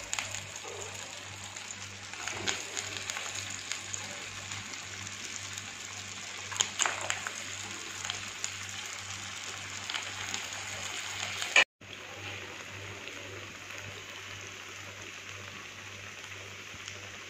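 Sabudana vadas deep-frying in hot oil in a pan: a steady sizzle with a few louder crackles and spits, under a faint low electrical hum.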